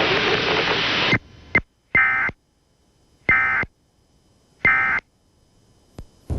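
A loud hiss of broadcast static cuts off about a second in. It is followed by three short warbling digital data bursts spaced about a second and a half apart: the Emergency Alert System end-of-message tones closing the test alert.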